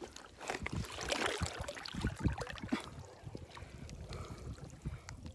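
Water sloshing and splashing around a person wading chest-deep, close to the microphone, with irregular small splashes and knocks.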